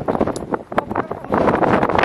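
Footsteps crunching in snow, with wind buffeting the microphone; the wind grows louder about two-thirds of the way through.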